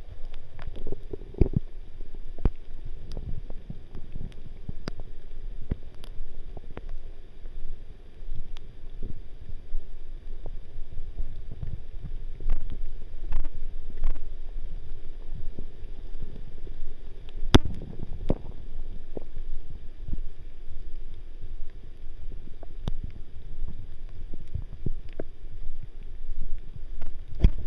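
Footsteps on a wet, leaf-covered forest path in the rain, over a low rumble of wind on the microphone, with scattered sharp ticks throughout.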